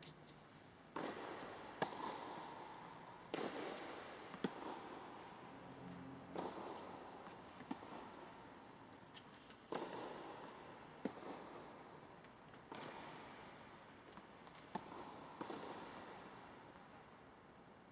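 Tennis rally on an indoor court: racquets striking the ball and the ball bouncing, each a sharp crack about every one to two seconds. Each crack trails off in a long echo from the large domed hall.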